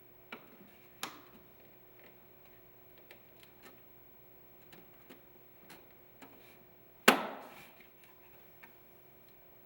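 Ford Fiesta blower motor screen assembly being worked into the bulkhead opening by hand: light scattered clicks and rubs, then a loud sharp click about seven seconds in as its retainer clips lock into place.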